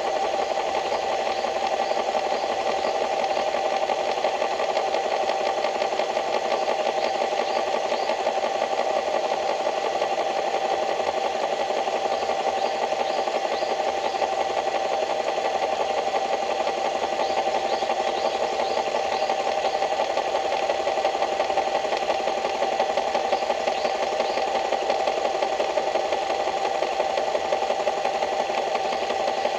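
A small engine or motor running steadily at an even speed, with short high chirps now and then over it.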